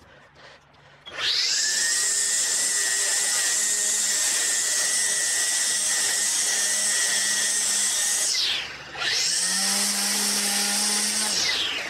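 Electric string trimmer spinning up about a second in and running at a steady high whine as its line cuts weeds from a crack in concrete. It winds down and spins straight back up about eight and a half seconds in, then winds down again near the end.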